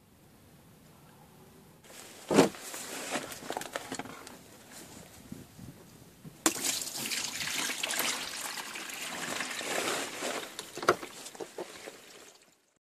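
Liquid, most likely engine coolant being drained, pouring and splashing. It builds up about two seconds in, with a few sharp knocks, the loudest early on, and stops just before the end.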